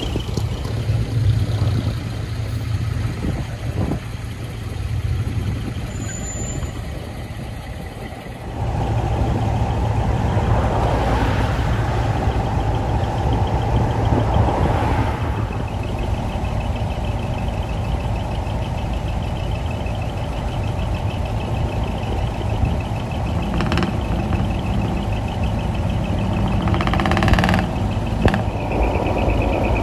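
Truck engines running as trucks drive past and wait in a line, a steady low rumble that gets louder about eight seconds in.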